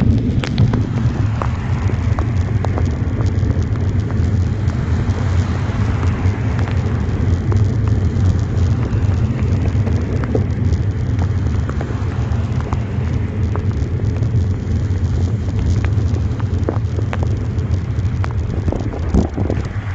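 Heavy rain with raindrops ticking on a phone held by a cyclist riding, over a steady low rumble of wind noise and wet road.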